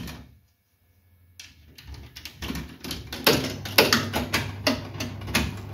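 Old German pfennig-operated 'Rotomat' slot machine running: its relays and mechanism clicking rapidly and irregularly, with a steady mains hum coming in about halfway through.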